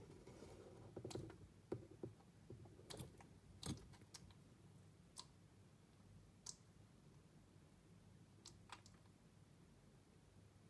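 Faint scattered clicks and soft knocks, about a dozen spread over several seconds and most frequent in the first four, as an African bullfrog lunges at and gulps down a pinky mouse.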